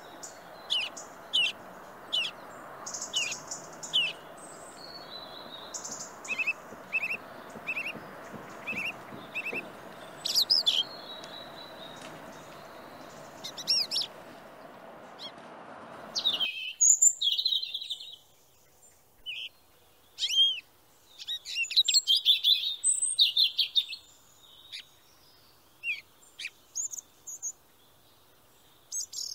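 Small birds chirping and calling: short, sharp, repeated chirps, some falling in pitch, coming thicker and faster in the second half. Under them a steady background noise stops abruptly about halfway through.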